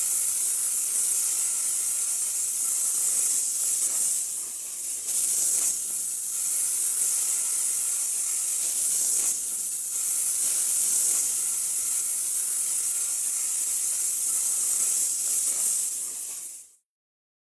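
A steady, high hiss that cuts off abruptly near the end, dipping briefly in level a few times.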